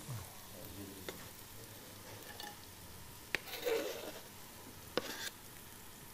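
Sliced onion sizzling in hot olive oil, a steady frying hiss. It is broken by a few sharp knocks and a short scraping rustle as onion is scraped off a plastic cutting board into the pot.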